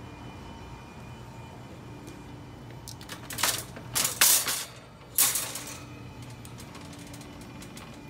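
Shopping cart with a metal frame and red plastic basket pulled free from a row of nested carts, clattering and rattling in a few loud bursts from about three and a half to six seconds in.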